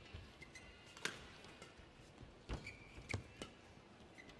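Faint badminton rally: a few sharp racket strikes on the shuttlecock, spaced about a second apart, with low footfall thuds and a brief high shoe squeak on the court mat a little before the three-second mark.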